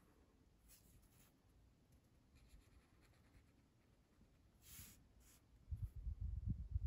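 Felt-tip pen strokes scratching across newspaper: a few short, faint strokes, then one louder stroke a little under five seconds in. Low thumps follow near the end.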